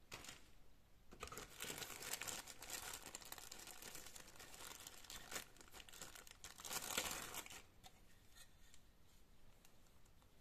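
Thin clear plastic bag crinkling as it is handled and pulled off a plastic model car body shell, loudest shortly before it stops about three-quarters of the way through.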